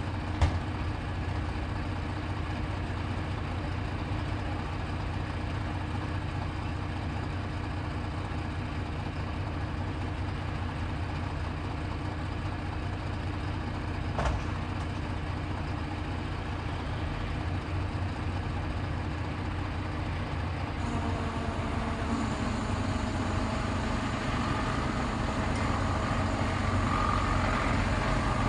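Heavy vehicle engine running steadily at idle, with two sharp knocks, one just after the start and one about halfway through. From about two-thirds of the way in, a higher engine note joins and grows louder toward the end.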